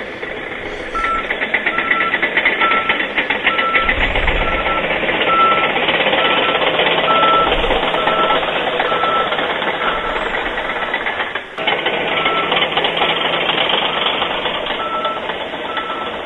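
Bulldozer reversing, its backup alarm beeping about twice a second over the steady running of the diesel engine and machinery.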